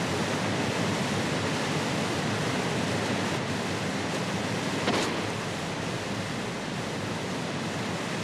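Steady rushing of river water, with one brief sharp knock or splash about five seconds in.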